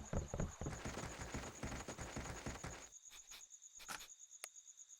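Quick running footsteps on the ground that die away about three seconds in, followed by a few single steps. A steady cricket chirp sounds behind them.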